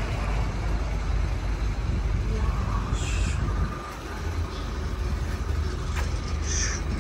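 Heavy diesel road-construction machinery running with a steady low rumble. Two short hisses sound over it, about three seconds in and again near the end.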